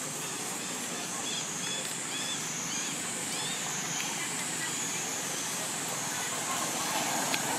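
Outdoor ambience: a steady high-pitched drone over a low hum, with a few faint short chirps between about one and four seconds in.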